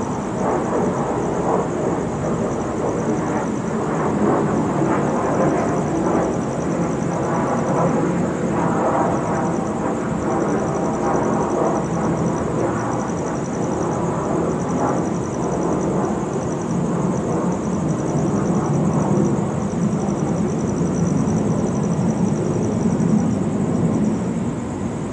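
Steady hum of distant city traffic, with a high, pulsing insect trill over it.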